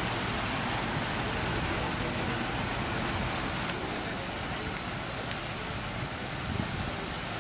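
Steady rushing of fountain jets splashing into their stone basins, mixed with a distant murmur of a crowd. Two short faint clicks about halfway through.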